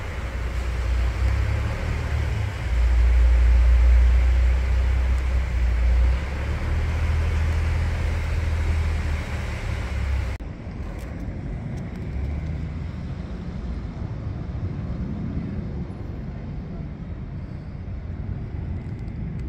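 A box truck's engine running as it drives slowly into a flooded road, a low rumble with a steady noisy haze, loudest a few seconds in. About ten seconds in the sound cuts abruptly to quieter, more distant road traffic.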